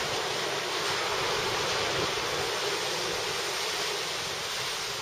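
Ocean surf breaking and washing up a sandy beach, a steady hiss, mixed with wind rumbling on the microphone.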